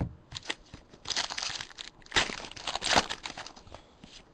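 Wrapper of a basketball trading-card pack crinkling and tearing as it is ripped open, in two bursts of about a second each, with short clicks of cards being handled.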